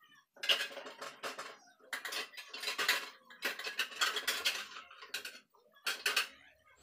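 Metal kitchen utensils and cookware clinking and scraping in several short bursts of clatter.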